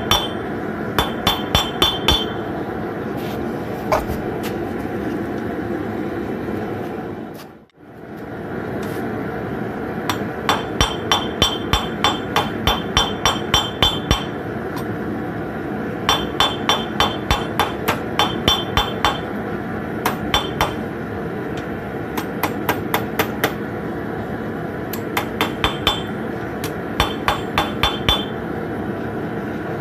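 Hammer striking a red-hot 7-inch common nail on an anvil, in quick runs of blows with short pauses between, each blow ringing brightly off the anvil. A steady rushing noise runs underneath, and the sound cuts out briefly about a quarter of the way in.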